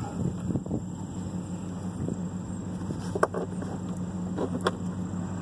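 Dodge pickup truck's engine idling steadily, heard from inside the cab, with a few sharp clicks about three seconds in and twice more a second and a half later.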